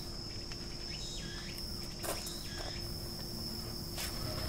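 Insects chirring in one steady high-pitched note, with a couple of short light clicks about two seconds in and again near the end.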